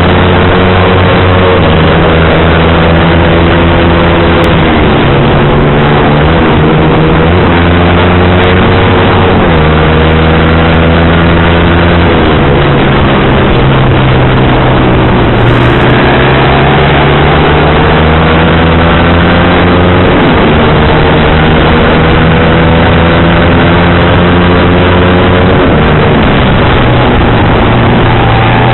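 Sport motorcycle engine on a racing exhaust, heard from the rider's seat while riding through the gears: the engine note climbs and then drops back at each shift, again and again, over a steady rush of noise.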